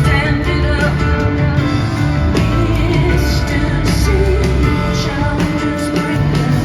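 Live rock band music: a woman singing over bass and drums, with steady low bass and cymbal strikes.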